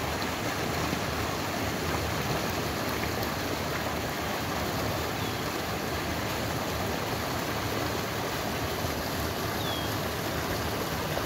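Creek water running steadily past the rocks, an even, unbroken rushing hiss.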